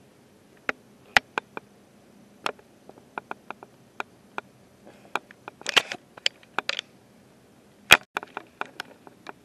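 Irregular sharp clicks and taps, scattered at first, bunching together about six seconds in, with the loudest single click near eight seconds in.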